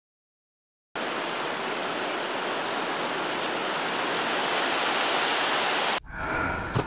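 Steady rushing noise like heavy rain, starting abruptly about a second in and cutting off sharply near the end, where quieter sounds with low thumps take over.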